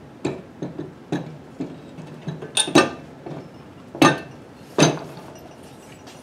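Metal knocks and clinks as a 1947 Harley-Davidson flathead engine is lowered into the frame and set down on its motor mounts: several light knocks, then three louder clanks between about three and five seconds in.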